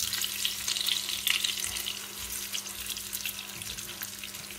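Breaded aubergines frying in hot vegetable oil in a pan: a steady sizzle with dense fine crackling, busiest in the first couple of seconds and then thinning out.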